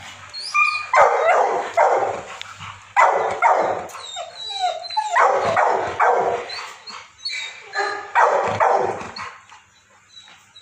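Large dog barking in about four bursts of two or three loud barks each, falling quiet about a second before the end.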